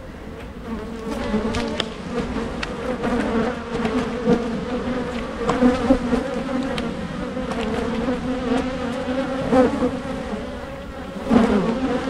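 Many honey bees buzzing around an opened hive, a steady wavering hum of overlapping wingbeats. A few light clicks and knocks come through as the wooden frames are handled.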